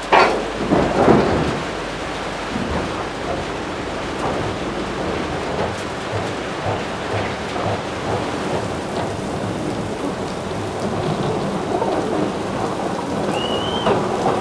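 A thunderclap at the start, then rain falling steadily, with one brief high whistle rising and falling near the end.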